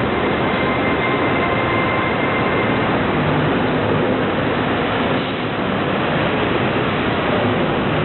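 Steady, loud rushing background noise with no distinct events, with a faint high tone in the first few seconds.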